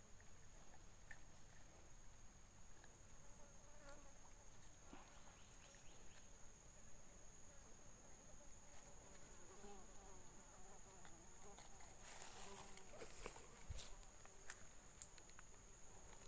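Faint, steady high-pitched drone of insects, with small repeated chirps above it. Near the end, some rustling.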